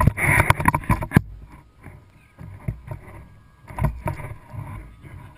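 Knocks and water sounds on a fishing kayak. The first second is loud and busy with sharp clacks, then there are scattered thumps, the strongest twice, near the middle.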